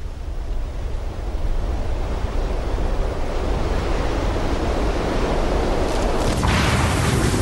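Rushing wind noise of an airliner falling with its engines dead from fuel exhaustion, swelling steadily in loudness. About six seconds in, a harsh crashing burst breaks in as the plane comes down.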